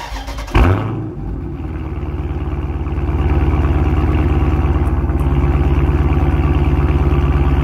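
Car engine catching with a brief flare about half a second in, then settling into a steady idle with an even low exhaust pulse, heard right at the tailpipe.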